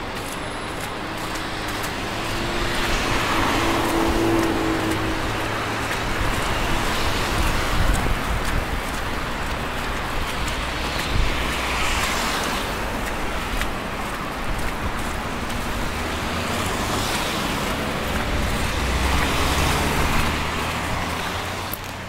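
City road traffic on snow-covered streets: a steady noise of tyres and engines, with several vehicles swelling past one after another. In the first few seconds a passing vehicle adds a humming engine note.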